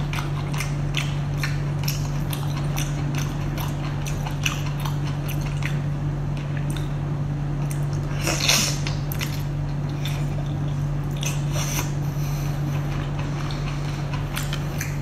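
Close-up eating sounds of a whole braised octopus being bitten and chewed: many short wet smacks and clicks, with the loudest bite about eight and a half seconds in, over a steady low hum.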